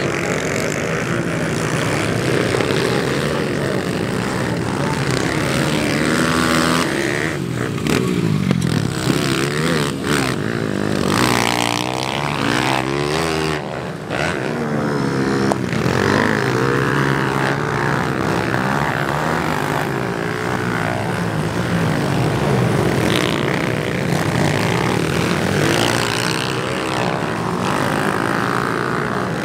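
Several small four-stroke pit bike engines racing together, their pitches overlapping and rising and falling as the riders rev up and back off through the jumps and corners.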